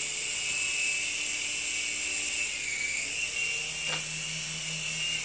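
Small electric model helicopter running, its motor whining and its 3D-printed rotor blades spinning steadily. The pitch dips slightly about halfway through and recovers, with a faint click near the end.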